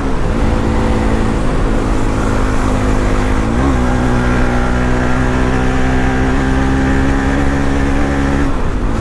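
Bajaj Pulsar NS200's single-cylinder engine running loudly under way at steady revs, its pitch briefly dipping and picking up again at the start, about three and a half seconds in, and near the end.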